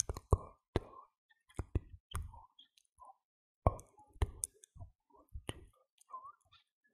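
Irregular sharp clicks, about one or two a second, with short soft noises between them and brief quiet gaps.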